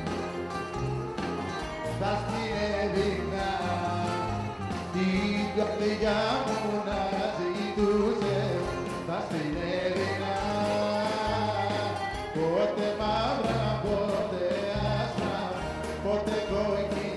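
Live Greek band music: a bouzouki played over drums, bass and keyboard, with a voice singing the melody.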